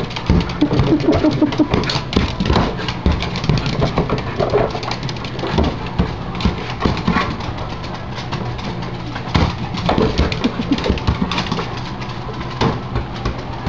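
Small terrier playing with a basketball on a hardwood floor: many sharp knocks and scrabbles from her claws and the ball, mixed with the dog's short whines.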